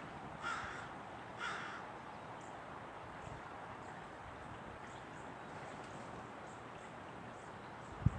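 A bird gives three short, harsh calls about a second apart, over a steady outdoor hiss. A couple of low thumps come near the end.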